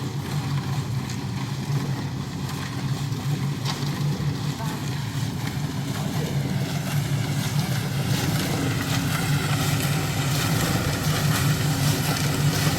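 An engine running steadily, growing a little louder in the second half.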